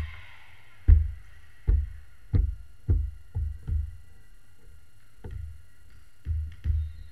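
A series of dull low thumps at an uneven pace: several about half a second to a second apart through the first four seconds, a pause, then a few more near the end.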